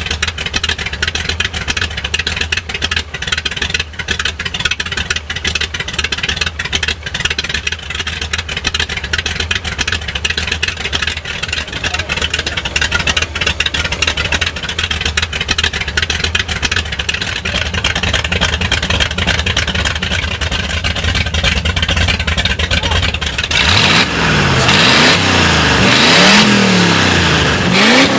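Hot rod's carburetted engine idling steadily. From about 23 seconds in it is revved several times, the pitch rising and falling with each throttle blip.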